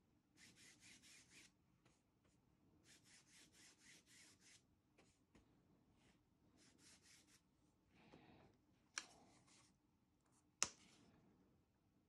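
Flat paintbrush scrubbing craft paint onto a fabric apron in short runs of quick back-and-forth strokes. Two sharp clicks come near the end, the second the louder.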